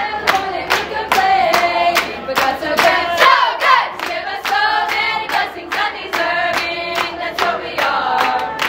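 A group of voices singing together over a steady beat of sharp strokes, about three a second.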